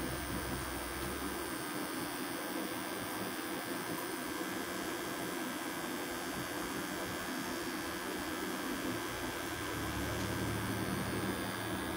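Electric tattoo machine buzzing steadily as the needle works into skin.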